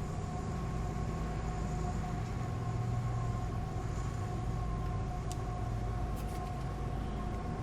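Steady mechanical hum with a low rumble and two steady tones, with a few faint small clicks about five and six seconds in.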